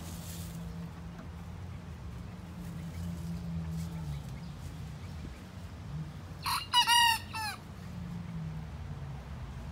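A young rooster gives one short, high, broken crow, about a second long, two-thirds of the way in: a cockerel just beginning to learn to crow. A steady low hum runs underneath.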